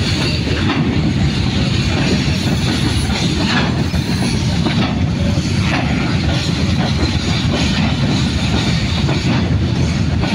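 A long freight train of hopper wagons rolling past: a steady, loud rumble of steel wheels on rail, with scattered clanks and knocks from the wagons.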